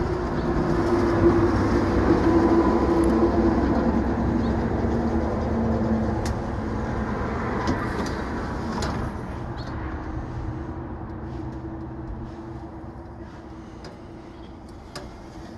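Electric under-floor wheelchair lift running as its platform powers out of the cassette and unfolds: a steady motor hum and whine that slowly gets quieter, with a few clicks in the second half.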